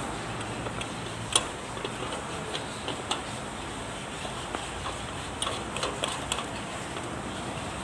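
Light clicks and taps of a clear fuel filter bowl being fitted and screwed onto its head on a tractor diesel engine. One sharper click comes about a second and a half in, and a cluster of clicks about five to six seconds in, over a steady background noise.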